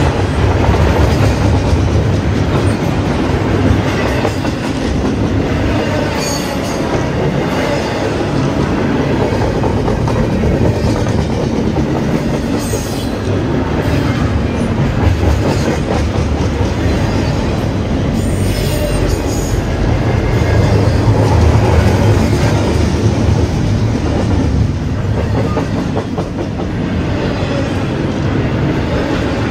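Double-stack intermodal freight train's well cars rolling past close by: a steady loud rumble and clatter of steel wheels over the rail joints, with brief high wheel squeals a few times.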